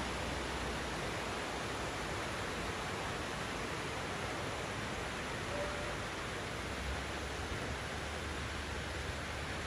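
A steady, even hiss of outdoor noise, with a low rumble coming up under it about seven seconds in.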